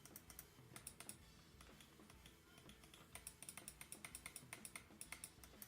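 Faint small clicks, a few scattered at first, then a steady run of about four a second in the second half.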